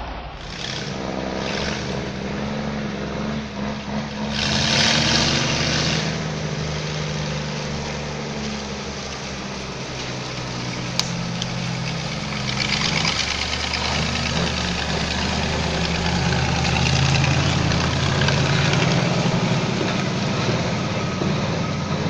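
Big diesel engine of a loaded log truck running under load on a dirt road, a steady low drone. It is joined by bursts of hissing in the first six seconds and a broader rushing noise over the last half.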